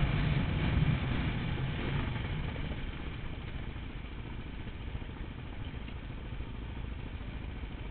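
Kawasaki KLX 650's single-cylinder four-stroke engine running under the rider while riding a dirt track, with rough ride noise. It falls in level over the first three seconds, then runs steadily and quieter.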